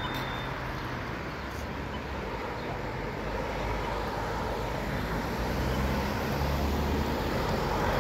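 Road traffic: cars driving through an intersection, the engine and tyre noise getting louder near the end as one passes close by.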